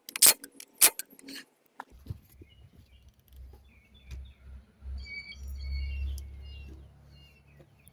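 Birds chirping in short, high calls over a low rumble. A few sharp clicks come in the first second or so.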